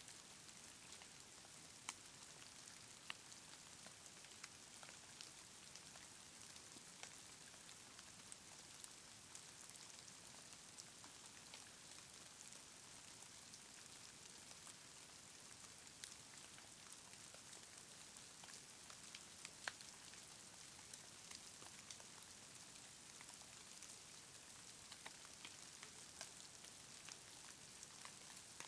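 Faint, steady hiss of falling snow with scattered soft ticks of flakes landing, at the edge of near silence.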